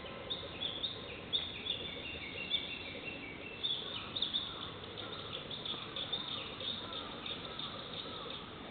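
Japanese bush warbler (uguisu) singing among other birds: a busy run of short high chirps and trills, thickest in the second half.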